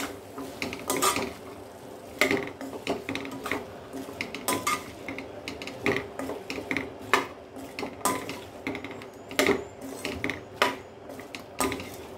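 A spatula scraping and knocking against a non-stick pan as diced potatoes are stirred into a thick masala, with a sharp clack roughly once a second.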